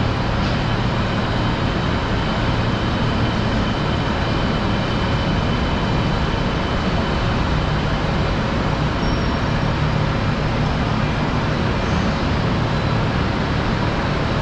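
Steady, even rumble of running engines with a low hum and a few faint, steady high whines.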